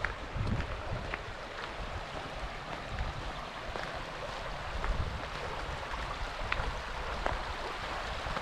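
Shallow, stony stream babbling steadily over rocks, with a low wind rumble on the microphone and a few short ticks scattered through.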